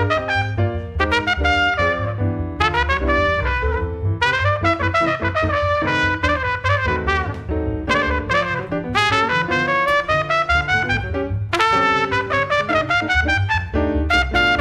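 Jazz trumpet soloing in quick phrases over plucked upright bass and piano comping, with a rising run about two-thirds of the way through.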